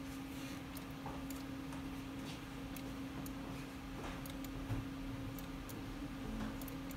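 A steady low hum with faint, irregular clicks scattered over it.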